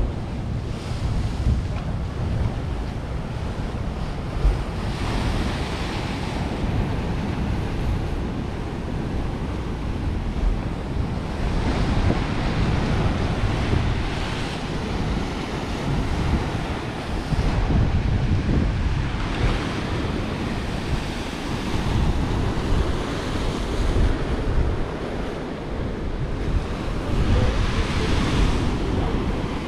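Sea waves washing ashore, swelling up every few seconds, with wind buffeting the microphone as a gusty low rumble underneath.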